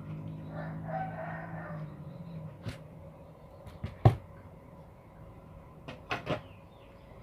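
Scattered sharp clicks and knocks of tools and parts being handled on a workbench, the loudest about four seconds in, with a quick cluster of three a couple of seconds later. A low steady hum sounds under them and fades out by about two seconds in.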